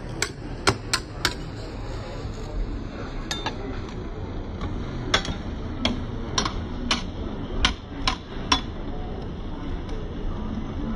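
Metal spatulas tapping and clicking against the steel cold plate of a rolled ice cream machine, in sharp separate taps: a few quick ones near the start and a run of about eight more through the middle, over steady background noise.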